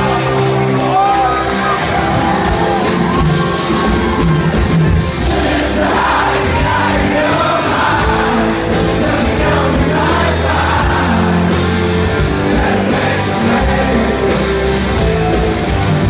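Live rock band playing, with electric guitars and a male voice singing, heard from the audience in a large hall.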